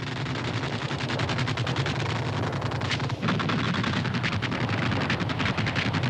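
Battle sound of rapid, sustained weapons fire: a dense stream of sharp cracks, many per second, over a steady low rumble. The rumble grows heavier about three seconds in.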